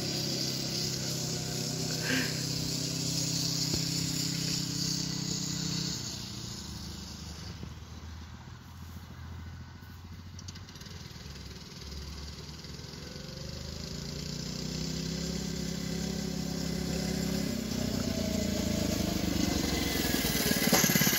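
Small single-cylinder petrol engine of an 80cc go-kart running as it drives across grass. It fades in the middle, then grows louder near the end as the kart comes back close.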